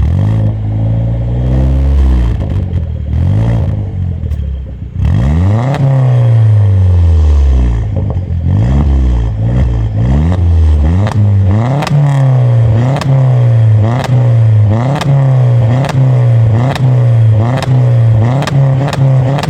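Opel Astra 2.0 turbocharged four-cylinder (Z20LEL) revving through a Friedrich Motorsport muffler. After a few slower revs and one long rise and fall, it gives quick short throttle blips in a steady rhythm, with a sharp crack at many of them.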